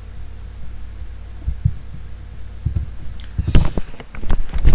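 Steady low electrical hum, with scattered soft clicks and taps of a computer keyboard and mouse that come more often in the last second or two.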